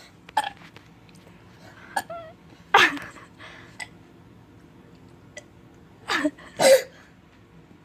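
Short, sharp vocal bursts from a person. The loudest comes about three seconds in, and two more come close together near the end.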